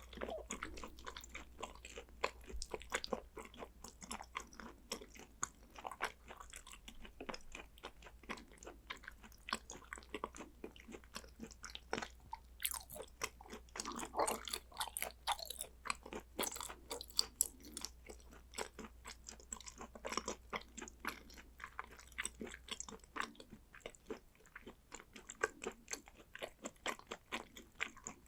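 Close-miked mouth sounds of someone chewing raw hanwoo beef and sea urchin roe: a steady run of wet clicks and smacks, with a few heavier, squishier bites around the middle.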